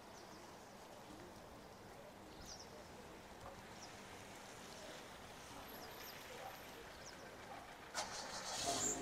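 Quiet rainy street ambience: a steady faint hiss with small birds chirping briefly now and then. Near the end a sharp click, then a car engine starts up and settles into an idle.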